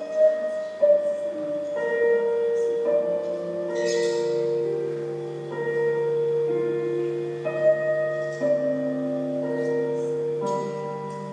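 Slow instrumental music: sustained pitched notes change every second or two, over a low held note that comes in about four seconds in.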